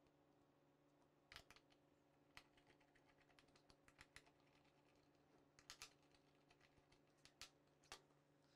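Faint, scattered small clicks and taps of a hand screwdriver working M3 screws into an aluminium channel end cap, with metal parts being handled.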